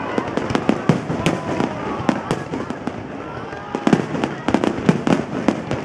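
Aerial fireworks display: shells bursting overhead in a rapid, uneven string of bangs.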